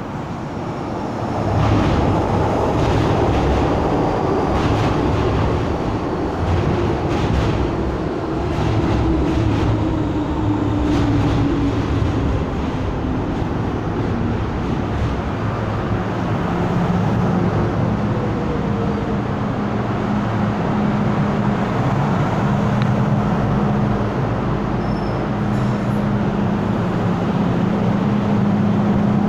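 MTR M-Train electric multiple unit arriving and braking to a stop at a platform. The rumble of its wheels on the rails rises about two seconds in, with clicks over the rail joints, and a tone falls in pitch as it slows. Once it has stopped, a steady hum continues.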